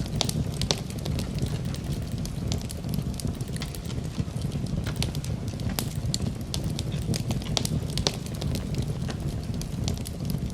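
Campfire burning: a steady low rumble of the flames with many irregular sharp crackles and pops.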